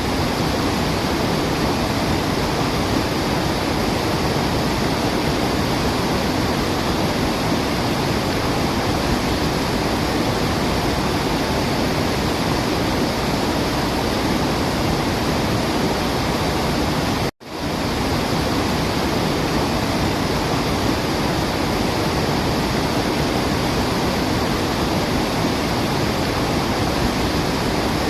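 Steady rushing of a waterfall. About seventeen seconds in it cuts out for an instant and swells straight back, the seam of a looped recording.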